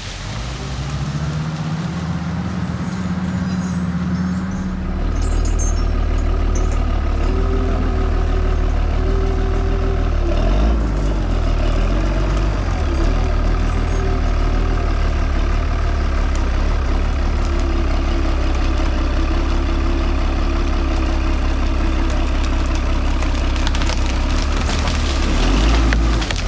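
Heavy diesel engine of a machine running loud and steady. Its pitch rises in the first few seconds, and it gets louder about five seconds in.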